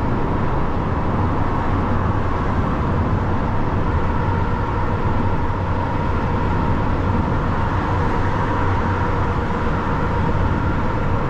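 Lorry driving at a steady motorway speed: continuous, even engine and road noise with a steady low hum, unchanging throughout.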